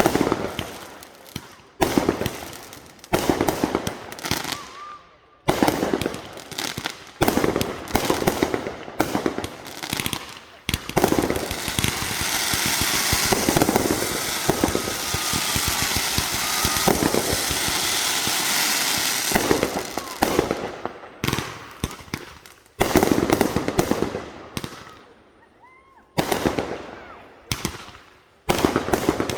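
Consumer fireworks going off in rapid volleys of bangs, each followed by crackling, with a long stretch of dense, continuous crackle through the middle.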